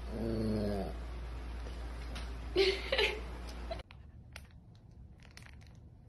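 A Samoyed's low grumbling whine lasting under a second, then two short barks about half a second apart.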